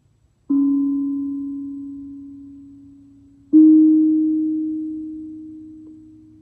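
LP Dharma Metta 16-inch steel tongue drum struck twice with mallets, about three seconds apart. Each note rings on with a long sustain, fading slowly, the second a little higher than the first.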